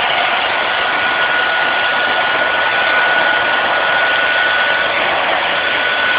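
Vacuum cleaner running steadily, a constant rushing motor noise with a thin high whine.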